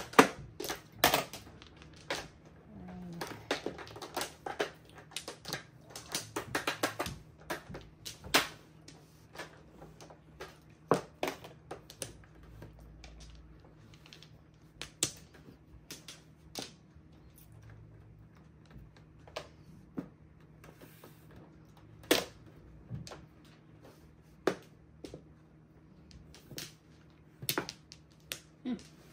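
Mahjong tiles clacking on the table as players draw and discard: irregular sharp clicks, a few much louder clacks among many lighter ones.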